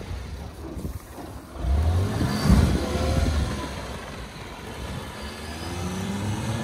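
Suzuki Carry mini truck's small engine revving as the truck pulls away, its pitch climbing, falling back about three and a half seconds in, then climbing again.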